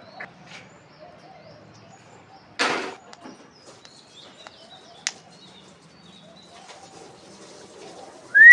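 Alexandrine parakeet: a brief rustle about a third of the way in and a sharp click near the middle, then near the end one loud, short call that rises and falls in pitch.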